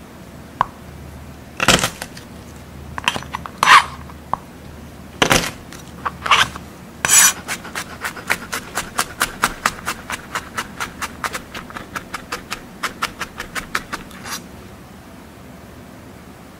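A chef's knife mincing garlic on a cutting board: a few separate knocks at first, then quick, even chopping at about four or five strokes a second that stops about two seconds before the end.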